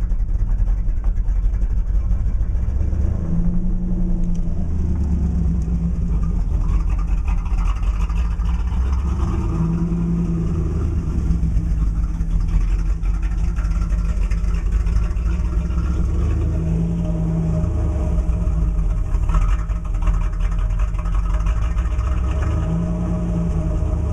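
1987 Chevrolet Camaro IROC-Z's 5.7-litre V8 idling roughly on a cold start after sitting for days, the idle rising and falling about every six or seven seconds. The owner says the idle speed fluctuates drastically while cold, dipping almost below 500 rpm, and that it clears up as the engine warms; he does not yet know the cause.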